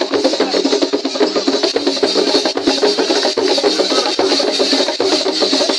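Traditional drum ensemble playing a fast, dense rhythm without pause.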